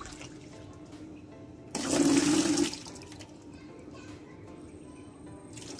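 Water poured from a stainless steel bowl of scallions splashing into a plastic tub of water as the scallions are rinsed: one loud splash lasting about a second, about two seconds in.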